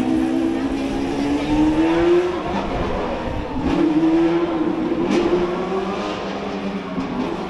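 Ferrari Challenge race car engine accelerating hard through the gears. The pitch climbs steadily, breaks at a shift about two and a half seconds in, climbs again, and shifts once more near the end.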